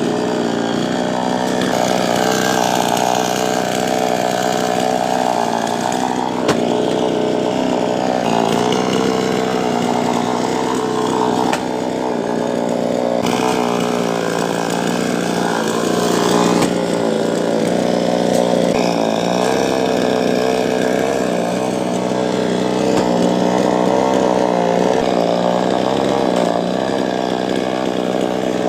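Two-stroke chainsaw running continuously while cutting coconut palm wood, its engine pitch dipping and recovering several times as it bears into the cut.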